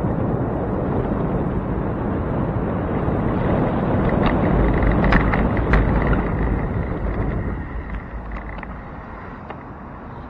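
Bicycle riding with a handlebar-mounted camera: a steady rumble of tyres and wind on the microphone, with a few sharp rattling clicks near the middle. The rumble dies down about three-quarters of the way through as the bike slows at the street.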